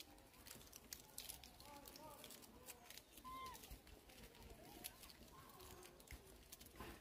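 Quiet scene with faint, short squeaks and chirps from feeding macaques, some rising and falling in pitch, and scattered small clicks.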